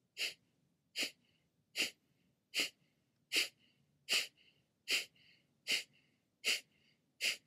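Kapalabhati breathing: about ten sharp, forceful exhales through the nose at a steady pace of a little over one a second, with a faint short inhale between each.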